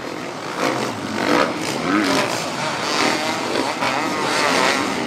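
Several motocross bikes racing round a dirt track, their engines revving up and down in overlapping, wavering pitches as the riders work through the jumps and turns.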